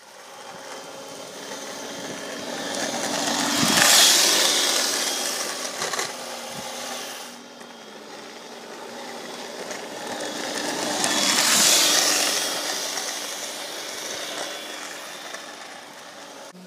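Homemade electric scooter driven by a cordless drill, its chuck wrapped in bicycle inner tube pressing on the wheel. The drill motor whines steadily while the small wheels rattle and hiss on asphalt. The sound swells and fades twice as the scooter passes close, about four seconds in and again near twelve seconds.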